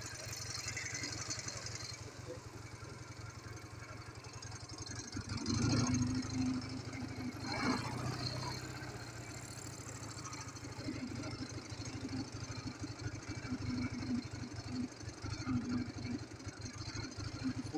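Ural motorcycle's flat-twin engine running, getting louder about five to eight seconds in, with a sharp knock near the eight-second mark.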